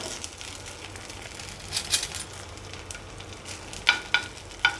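Oil sizzling in a hot nonstick pan as poha-and-semolina vegetable cutlet mixture is put in and shaped into round patties, with a few short clicks and taps against the pan.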